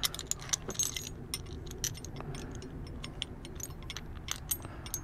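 Irregular light metallic clicks and clinks of a wrench and small steel nuts, bolts and washers handled in the fingers as a bicycle saddle's rail-clamp hardware is put back together.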